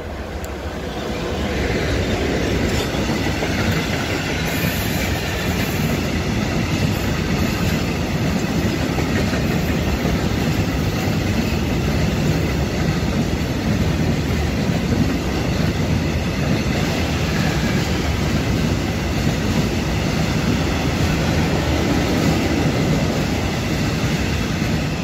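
PKP Cargo ET22 electric freight locomotive passing close by, followed by a long train of tank wagons rolling past. The steady noise of wheels on rails swells over the first couple of seconds and stays loud throughout.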